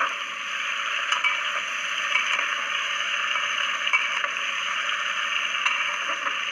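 Potato pieces frying in hot oil in a pressure cooker, a steady sizzle, with a few sharp scrapes and knocks of a spatula against the metal pot as they are stirred.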